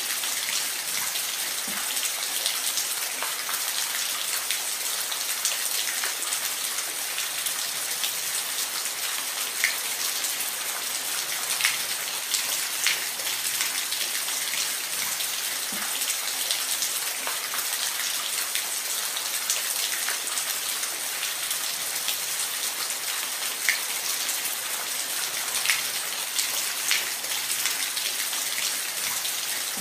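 Steady hiss of falling water, with scattered sharp drop-like ticks.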